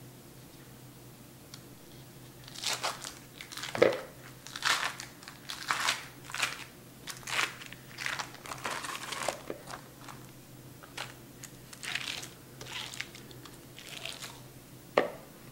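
Foil-lined paper wrapper of a cream cheese block being peeled open and crinkled, in irregular rustling bursts that start a couple of seconds in, with one sharper knock about four seconds in.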